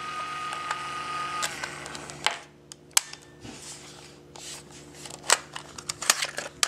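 Sony WM-10 cassette Walkman's tape mechanism running with a steady whine once its headphone plug is pushed in, stopping about two seconds in. Then scattered sharp clicks of the small metal-and-plastic player being handled.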